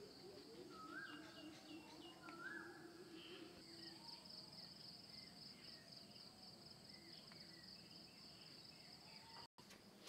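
Faint birdsong, one bird repeating a short rising call twice in the first few seconds, over a steady, high, pulsing insect trill.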